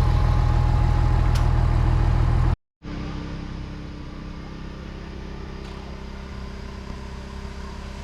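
A vehicle engine running steadily and loudly. A short cut of silence comes about two and a half seconds in, followed by a quieter, steady engine hum.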